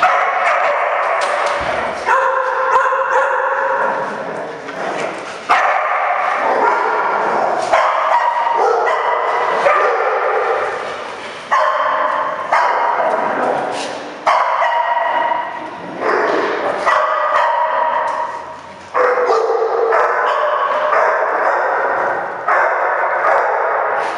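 Several dogs barking and yipping almost without a break during rough play, the barks echoing in a room with hard walls and floor.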